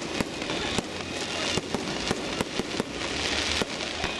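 Aerial fireworks going off overhead: a rapid, irregular string of sharp bangs, about a dozen in four seconds, over a steady hiss.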